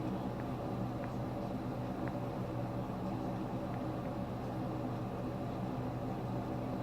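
A steady mechanical hum made of several even low tones over a hiss, with a few faint ticks.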